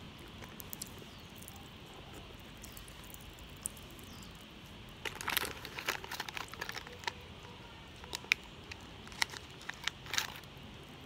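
Plastic candy wrapper crinkling as it is handled and picked open, in irregular clusters of crackles starting about halfway through.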